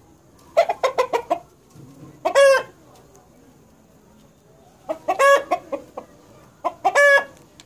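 Desi rooster calling twice: each time a quick run of short clucking notes followed by a single longer, drawn-out call.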